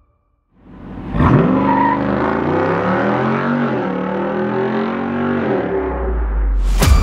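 2024 Jeep Wrangler Rubicon 392's 6.4-litre HEMI V8 under full-throttle acceleration from a standstill. The revs climb and drop back at each upshift of the 8-speed automatic as the Jeep pulls away. A loud music hit cuts in near the end.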